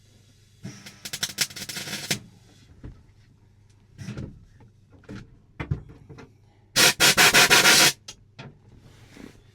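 Welding in short bursts on car body steel: two spells of dense crackling, the second louder. Scattered clicks and knocks fall between them.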